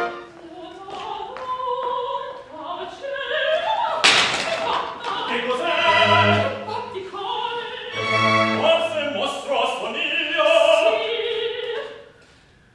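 Operatic singing by a man and a woman, trading and overlapping lines of a duet, with a brief crash about four seconds in. The singing fades out near the end.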